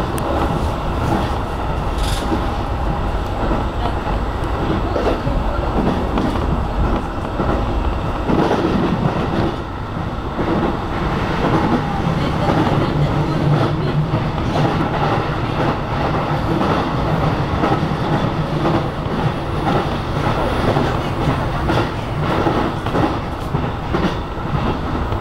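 E233-series electric train heard from inside as it pulls out of a station and picks up speed, with steady running noise and wheels clacking over rail joints. A low hum comes in for a few seconds midway.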